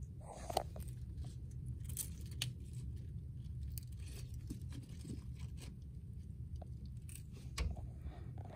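Tortoise biting and tearing romaine lettuce: irregular crisp crunches and rips, loudest about half a second in and again near the end, over a steady low hum.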